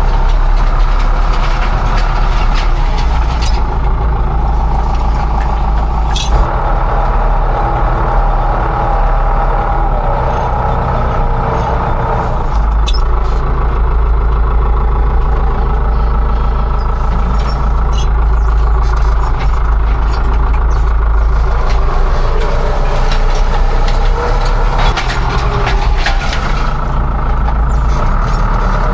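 Farm machine engine running steadily under load while tilling soil, a loud continuous low drone whose strength shifts a few times.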